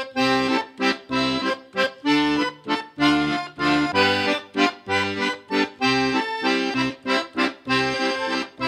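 Instrumental theme music: a quick, lively tune of short detached notes over a pulsing bass line.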